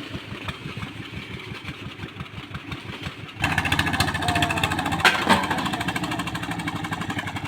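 Engine of a water-well boring machine running with a steady pulsing beat, which gets suddenly louder and busier about three and a half seconds in, as if throttled up or put under load.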